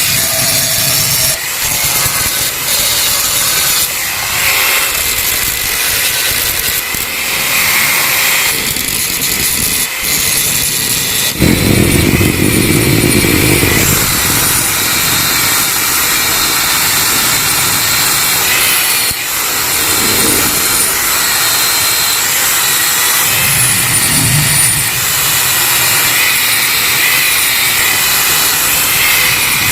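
Yamaha RX-King's single-cylinder two-stroke engine running through its gutted exhaust, blipped a few times. The longest and loudest blip is about twelve seconds in.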